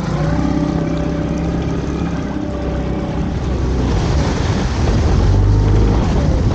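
Small boat's outboard motor running under way, with water rushing past the hull. The engine note shifts lower and a little louder about four seconds in.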